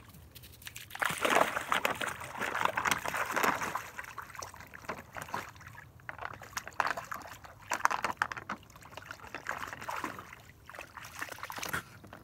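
A dog splashing through shallow lake water: heavy sloshing for a few seconds starting about a second in, then lighter, irregular splashes.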